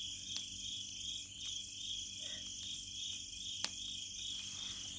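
Crickets chirping in a steady, evenly pulsing chorus, with a single sharp click about three and a half seconds in.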